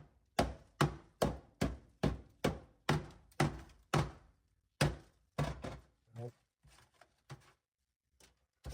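Mallet striking sound deadener frozen brittle with dry ice on a car's body panels, about two to three hard knocks a second as the deadener cracks loose. After about five seconds the blows turn lighter and sparser.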